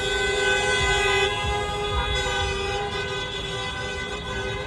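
A vehicle horn held in one long, steady blast of unchanging pitch. It cuts off just at the end.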